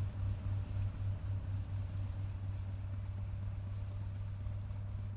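Railway rotary snowplough running as it throws snow: a steady low mechanical drone that throbs about three times a second in the first couple of seconds, then evens out.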